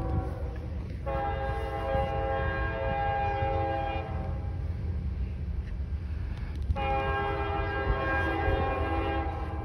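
Locomotive air horn sounding a chord of several notes as the train nears a grade crossing: the tail of a short blast at the start, then two long blasts of about three seconds each with a pause of nearly three seconds between them, over a steady low rumble.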